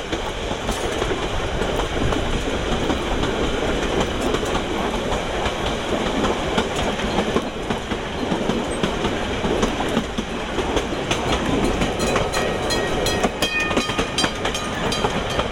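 Wooden heritage railway carriage rolling along the track: a steady rumble of the running gear with a clickety-clack of wheels over the rail joints. The clicks grow sharper and more frequent from about eleven seconds in.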